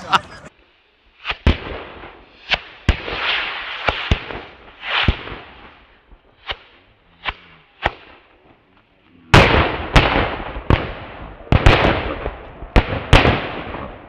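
Fireworks going off: scattered sharp bangs, each with a fading tail, then a rapid run of louder bangs from about nine seconds in.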